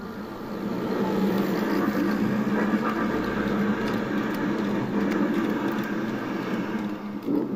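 H0-scale model of an FS E464 electric locomotive hauling Intercity coaches, running past on the track. The steady rumble grows louder over the first second, holds while the coaches go by, and eases off near the end.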